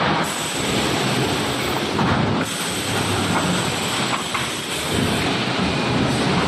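3D panel wire-mesh welding machine running, a steady mechanical clatter with hiss.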